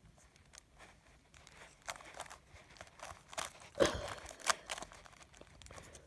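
Plastic Rubik's cube layers being turned by hand: an irregular run of small clicks and clacks, the loudest a little under four seconds in and again at about four and a half seconds.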